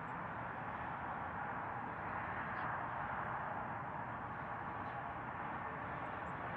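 Steady hum of distant city road traffic, with a few faint, short high chirps scattered through it.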